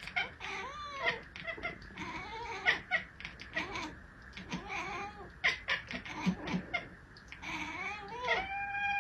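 Domestic cat meowing repeatedly: a string of short calls that rise and fall in pitch, then a longer drawn-out meow near the end. Sharp clicks and knocks come between the calls.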